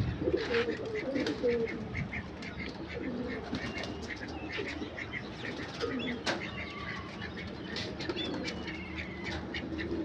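A flock of domestic pigeons cooing, with wing flaps and scattered short clicks among them.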